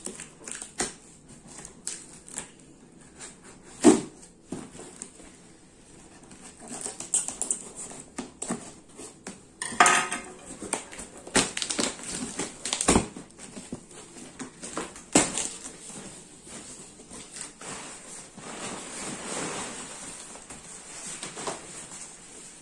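Cardboard shipping box being opened with scissors: scattered sharp clicks, snips and knocks as the packing tape is cut and the flaps are handled, then soft rustling of crumpled brown packing paper near the end.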